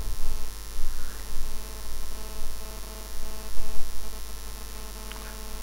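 Gusty wind buffeting the microphone in uneven surges, over a steady multi-toned hum.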